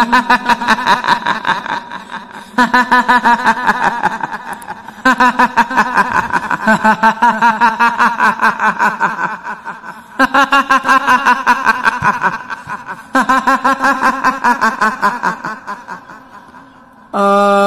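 A woman's high-pitched 'hihihi' cackling laugh in the manner of a kuntilanak ghost, in about five fits of rapid pulses, each starting loud and fading out.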